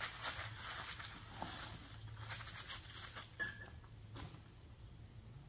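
Footsteps crunching through dry fallen maple leaves, a run of crackling rustles that thins out after about three and a half seconds.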